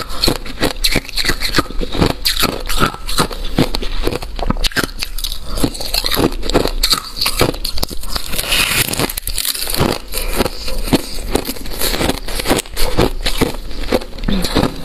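White freezer frost ice being bitten and chewed, close-miked: a continuous run of crisp crunches and crackles.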